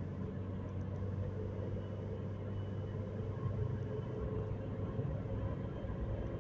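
A car's engine and tyres heard from inside the cabin while driving, giving a steady low rumble and hum.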